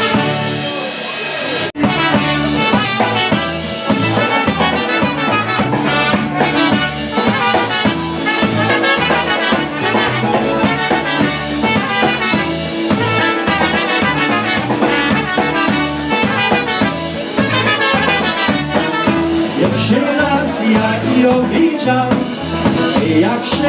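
Live polka band playing an instrumental passage: two trumpets carry the melody over concertina, piano accordion, electric bass and drum kit with a steady beat. The music dips very briefly about two seconds in.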